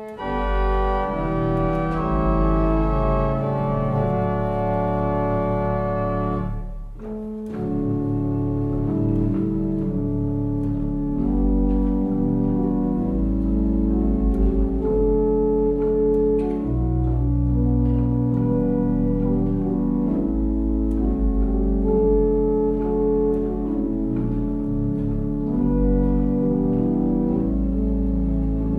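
Two-manual pipe organ playing slow sustained chords over deep pedal notes, with a short break about seven seconds in.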